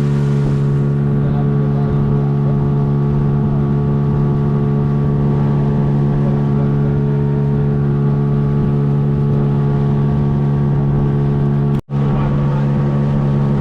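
Motorboat engine running at a steady speed, an even drone that holds without change. It cuts out for a split second near the end.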